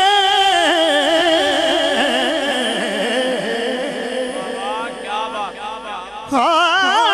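Male naat reciter singing into a microphone. A long held note breaks into wavering melismatic ornaments and grows softer, then a loud new ornamented phrase begins near the end.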